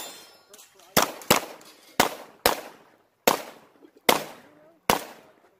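Pistol fired in a string of about seven shots at an uneven pace, some as quick pairs, each crack fading quickly.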